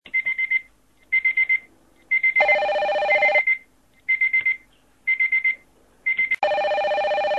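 Electronic alarm or ringtone: clusters of four or five rapid high beeps about once a second. Twice, about two seconds in and again near the end, a louder, lower buzzing ring joins in for about a second.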